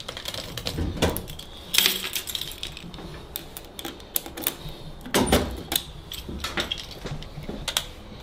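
Loose hand tools clinking and rattling in a metal toolbox drawer as someone rummages through it: scattered sharp metallic clicks, with louder clatters about two seconds and five seconds in.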